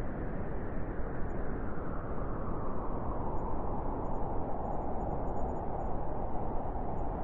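Wind blowing steadily, a dense low rushing noise that eases slightly in the middle and swells again near the end.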